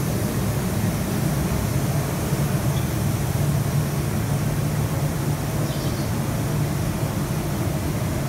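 Steady low rumble of factory machinery in a crystal glass-blowing hall, holding even throughout.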